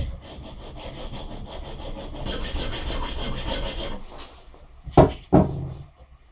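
Hand file scraping back and forth on a quarter-inch aluminium rod held in a vise, filing a flat onto it; the strokes stop about four seconds in. Two sharp knocks follow about a second later.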